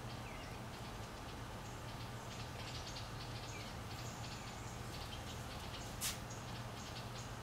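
Quiet background with a steady low hum and faint small bird-like chirps. About six seconds in comes a single sharp tap as a hand lands on the plastic cutting board.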